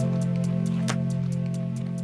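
Background music, slowly fading: sustained low tones with light percussive ticks.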